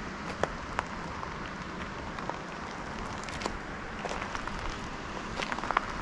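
Steady outdoor ambience: an even rushing hiss with scattered sharp clicks and ticks.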